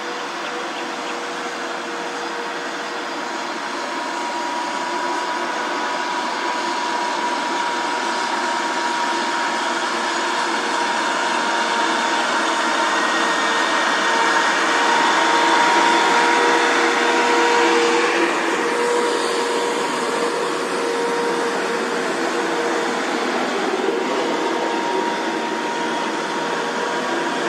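Engines of heavily loaded light trucks working steadily as they pass. A droning engine note with a steady whine grows louder toward the middle and then eases a little.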